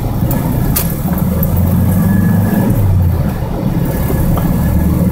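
Manual-transmission car's engine running while driving, heard from inside the cabin, with a change in engine pitch around three seconds in as the gears are shifted. A click about a second in.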